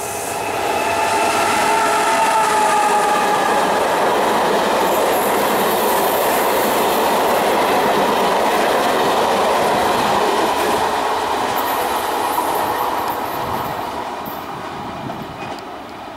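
E464 electric locomotive and its regional coaches passing close by. A whine falling slightly in pitch as the locomotive goes past gives way to the steady noise of the coaches' wheels on the track, which fades over the last few seconds.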